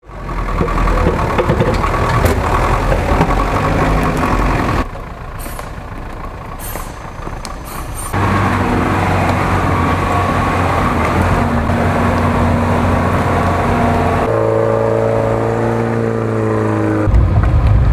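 Off-road trucks' engines running, in several clips that cut abruptly from one to the next. In one clip, a little before the end, the engine holds a steady pitched note.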